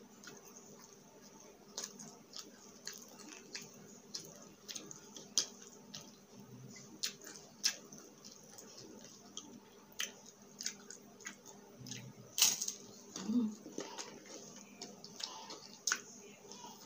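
Close-up crunching and chewing of crispy fried egg chicharon chips: a string of sharp, irregular crackles, the loudest a little past the middle.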